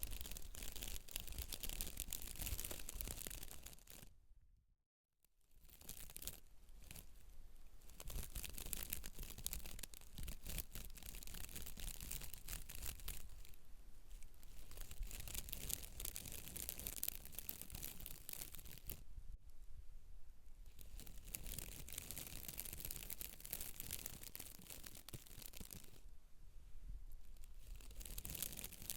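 Scratching and rubbing on hair and scalp: a dense, crackly rustle that stops briefly about four seconds in, then carries on.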